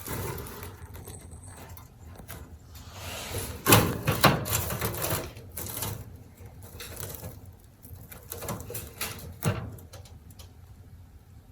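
Netherland Dwarf rabbit digging at and tearing a woven timothy hay mat: irregular bouts of scratchy rustling and scraping, loudest about four seconds in and again near nine seconds.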